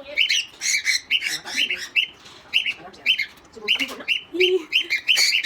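Pet parrots squawking in a rapid series of short, sharp calls, easing off briefly about two seconds in before picking up again.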